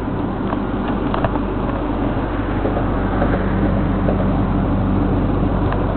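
2000 Ford Mustang GT's 4.6-litre V8 idling steadily.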